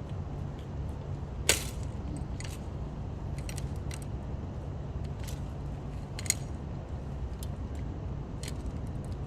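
Small metal parts and hand tools clinking and clicking during a bicycle tire repair, with two sharper clinks about one and a half seconds and six seconds in. A steady low rumble of traffic runs underneath.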